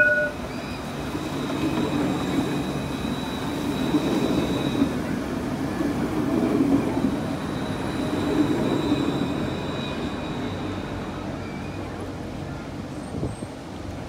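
A low-floor tram passing close by on street track, its wheels and running gear rumbling as it goes past, with a thin high squeal from the wheels on the curve for long stretches. A short bright ding sounds right at the start.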